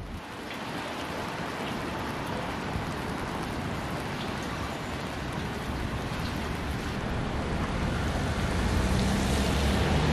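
Steady rain and wet-street hiss. It grows a little louder toward the end, where a low engine hum comes in.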